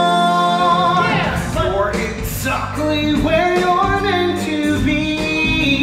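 A male voice sings a musical-theatre song over a recorded band backing track. The singer holds a long note at the start and lets it slide down about a second in, then moves through a run of shorter notes.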